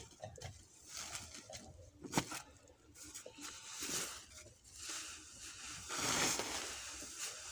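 Rustling and crackling of straw and green cattle fodder being handled, in irregular bursts, with a sharp click about two seconds in.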